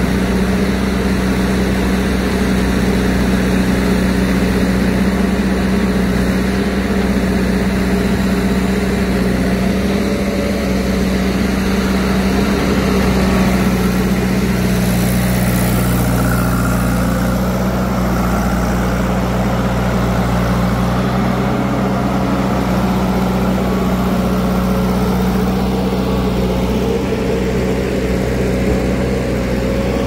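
Diesel engine of heavy farm or earthmoving machinery running steadily at a constant speed, its note shifting slightly about halfway through.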